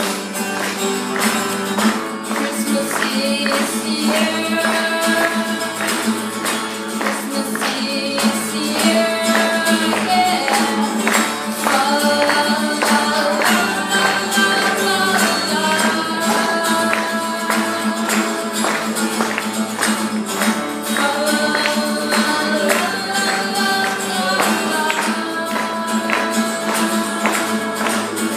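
Steadily strummed acoustic guitar, with a boy's voice singing a melody over it.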